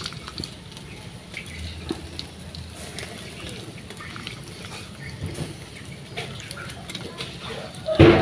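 Fish sizzling on a wire grill basket over a charcoal fire, with small crackles and pops from the coals and dripping basting paste. Right at the end comes a loud metal clank that rings on.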